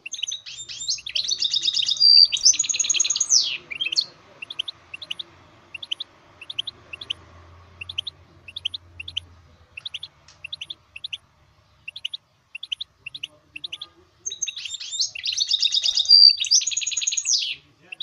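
Goldfinch mule, a goldfinch–canary hybrid, singing. Two loud bursts of fast trilled song come near the start and near the end, with short high chirps a few times a second in between.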